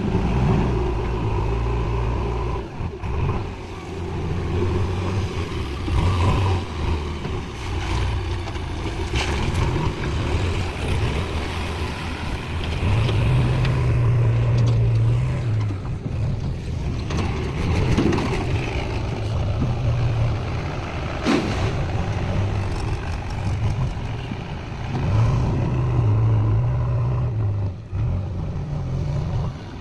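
Backhoe loader's diesel engine running, revving up under load a few times, with a few sharp knocks.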